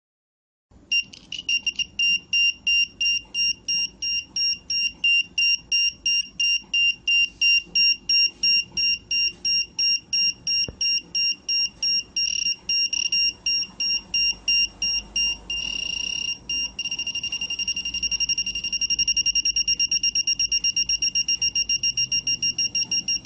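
A small buzzer driven by a 555 timer circuit beeping in a steady high-pitched pulse, about two or three beeps a second at first. About two-thirds through, the beeps run together into a near-continuous tone, then go on as much faster beeping: the beep rate is being changed with the circuit's potentiometer.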